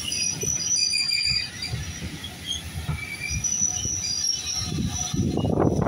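Vintage wooden-bodied railway carriages rolling slowly past, their wheels letting out intermittent high-pitched squeals, over gusty wind on the microphone that swells near the end.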